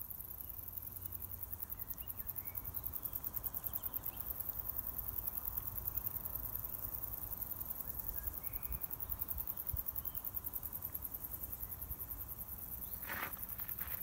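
Meadow insects chirring: a steady, high, fast-pulsing hum over a low rumble, with a few faint bird chirps. A brief rustle sounds near the end.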